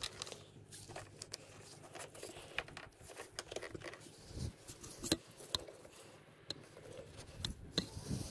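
Scattered light clicks and rustling of gloved hands working plastic wiring connectors and hoses around a motorcycle's air cleaner box as they are unplugged, over a faint steady low hum.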